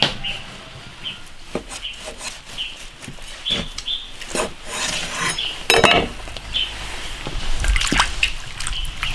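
A cleaver cuts through a slab of raw pork belly on a wooden chopping board, with scattered knocks of the blade on the board. About two-thirds of the way in, the slab goes into a wok of water, which splashes and sloshes around it.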